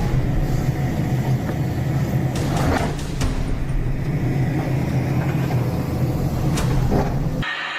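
A heavy machine's engine running steadily at a low pitch, with a few sharp knocks and cracks over it. Near the end it cuts off abruptly to a quieter, thinner steady hum.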